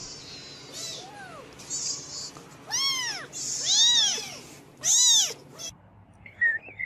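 Kittens meowing: about four high mews, each rising then falling in pitch, the last three the loudest.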